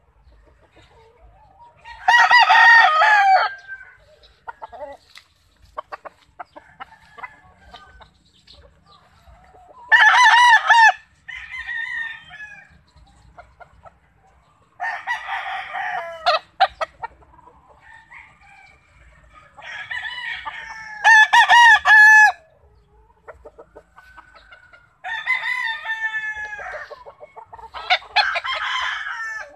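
Gamecocks crowing in turn, about five loud crows of a second or two each, with quieter calls between.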